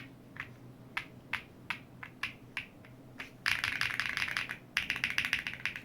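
Sugar65 mechanical keyboard with G-Square Beatrice linear switches on an FR4 plate, being typed on: single keystrokes about three a second, then two fast runs of rapid typing about a second long each. Each keystroke is a sharp clack as the key bottoms out.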